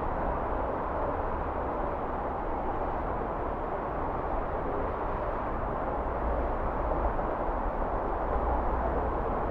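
Steady hum of city road traffic, with no single vehicle or bell standing out.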